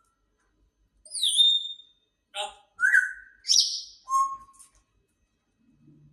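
Grey parrot whistling and calling: a string of about five short calls, mixing falling and rising whistles with a harsher, rasping note, between one and four and a half seconds in.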